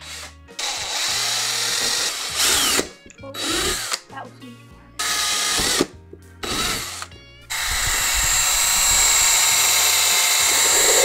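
Power drill boring small holes, in several short runs and then one longer run near the end, with background music underneath.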